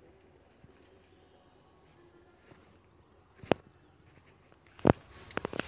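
Faint insect chirping over a quiet background, with a few sharp clicks and knocks in the second half.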